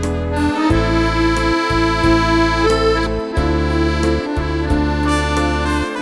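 Accordion playing a melody over sustained bass notes, with short breaks in the bass about once a second as the notes change.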